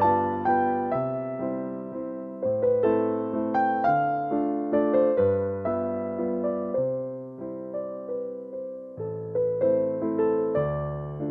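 Background music played on an electric piano: a gentle, calm melody over bass notes that change every second or two.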